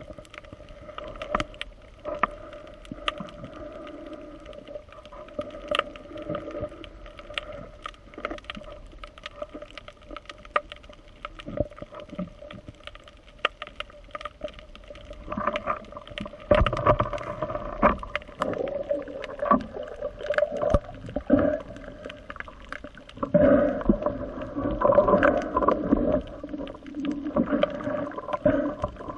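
Underwater sound heard through an action camera's waterproof housing: a muffled water murmur with a steady low hum and sharp clicks scattered throughout. It swells into louder, rougher gurgling water noise twice, about halfway through and again near the end.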